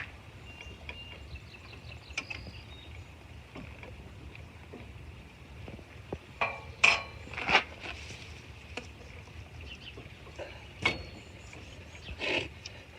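Metal clinks and knocks of bike-rack parts being handled and fitted: a sharp knock at the start, two louder clanks about seven seconds in, and more near the end.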